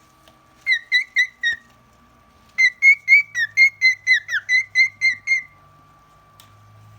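Cockatiel whistling runs of short, clear, repeated notes at about four a second: a short run of four, a pause, then a longer run of about a dozen, some sliding down in pitch, stopping a little past halfway.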